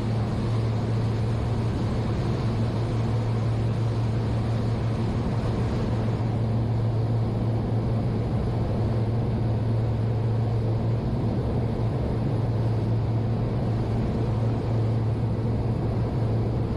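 Pershing GTX116 motor yacht running at speed: a steady low engine drone under an even rushing noise of water and wind.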